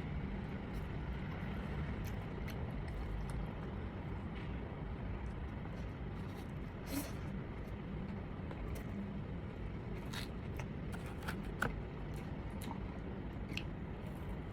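Eating sounds: chewing and biting, with a few short clicks and crunches, over a steady low background rumble.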